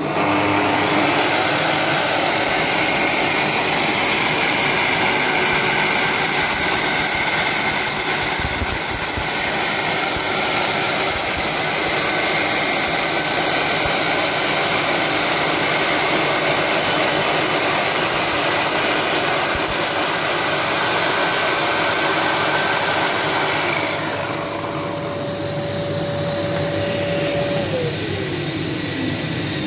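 Festool HK85 saw fitted with a milling head running as it is pushed through a door frame, cutting a housing trench, with dust extraction drawing through two hoses. The steady whine stops about four-fifths of the way through, leaving a lower hum that winds down near the end.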